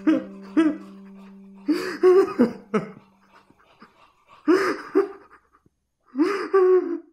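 A man sobbing: broken, wailing cries in short bursts, with two brief sobs at the start and louder fits about two, four and a half and six seconds in. A held music chord sounds under them and stops about halfway.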